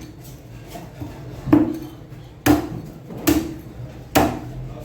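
A heavy knife chopping through fish on a cutting block: four hard chops just under a second apart, with a lighter knock before them.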